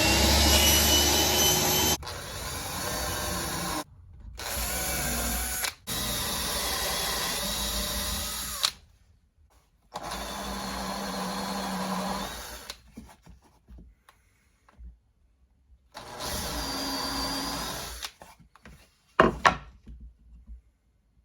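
Power tools running in a string of short bursts of a few seconds each, starting and stopping abruptly with quiet gaps between them, and a few sharp clicks near the end.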